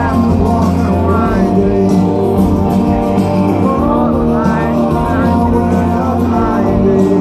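Live rock band playing through a festival PA, heard from within the crowd: a male lead vocal over strummed acoustic guitar and band.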